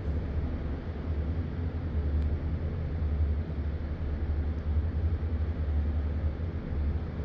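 Steady low rumble with an even hiss over it: the constant background noise of an indoor pool hall.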